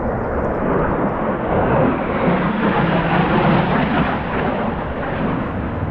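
Fighter jets manoeuvring at low level between mountains: a loud, even jet roar that builds to a peak about three to four seconds in, then eases off.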